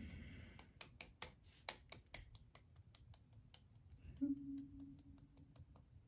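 A quiet run of small, evenly spaced clicks, about five a second, fading as it goes. About four seconds in, a woman gives a short, steady hummed "mm".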